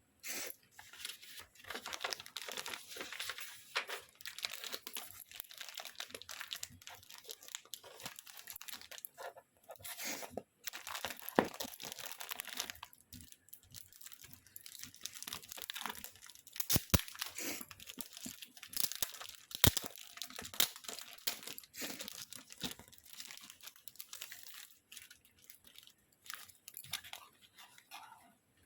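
Packaging being torn open and crinkled by hand: a long run of crackling rustles and sharp snaps with short pauses, the loudest snaps about 17 and 20 seconds in.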